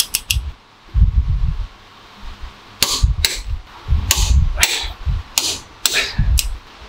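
Click-type torque wrench clicking as it reaches the set torque on the crown wheel bolts of a differential centre: two sharp clicks at the start, then a run of them about every half second from near three seconds in, with low knocks and rumble of the wrench working the bench-mounted diff in between.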